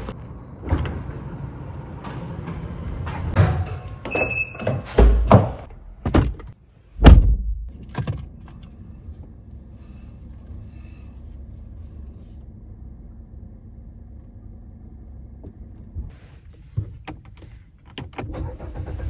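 A handful of heavy thunks and knocks, door sounds among them, then an automatic garage door opener running with a steady low hum for several seconds. A few light clicks come near the end.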